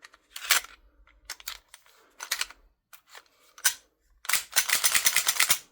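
WE Big Bird gas blowback airsoft pistol being worked and fired: a few separate sharp clacks, then a rapid string of blowback shots lasting about a second and a half near the end, the slide cycling with the newly fitted nozzle. The pistol is working again after the cracked-nozzle fault.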